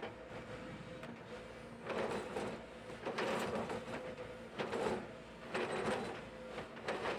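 Link-Belt 135 excavator running steadily while its bucket works a pile of broken asphalt, with several surges of scraping and rattling as chunks grind and tumble.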